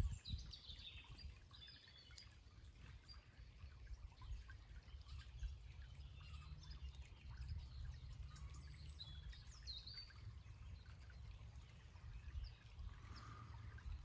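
Shallow woodland stream trickling softly, with small birds chirping and calling, most in the first two seconds and again about eight to ten seconds in. A faint low rumble runs underneath.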